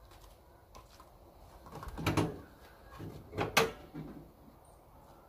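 Car hood being released and lifted: a clunk of the latch and panel about two seconds in, then a couple of sharper metallic clicks and knocks around three and a half seconds.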